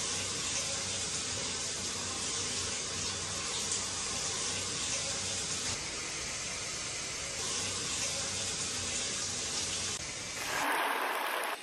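Water running steadily from a rain shower head and a bathroom sink tap, an even hiss. Near the end the sound changes and grows a little louder.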